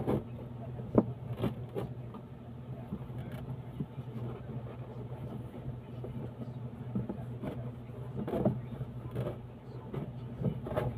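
Scissors snipping through a cardboard box and the cardboard being pulled and torn open, in scattered short cuts and rips over a steady low hum.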